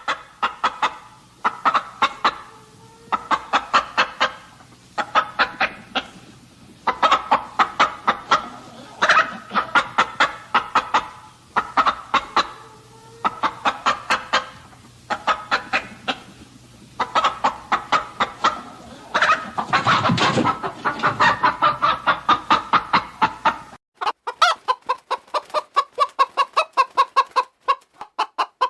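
Domestic chicken clucking in quick runs of clucks, one run after another with short pauses between. Near the end the recording cuts to another stretch of the same rapid clucking.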